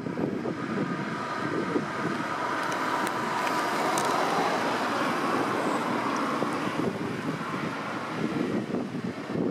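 Wind buffeting the microphone over the steady distant hum of a destroyer and its escorting tug under way.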